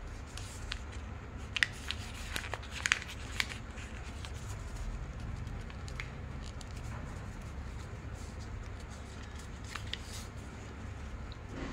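Paper being folded and creased by hand, with sharp crinkles and taps bunched in the first few seconds and a few more later on. A low steady hum runs underneath.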